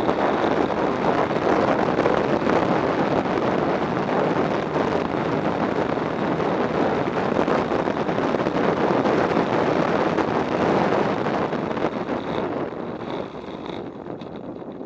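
Wind noise on the microphone of a camera mounted on a Bajaj Pulsar motorcycle riding at speed, with the bike's running and road noise mixed in. It dies down over the last few seconds as the motorcycle slows.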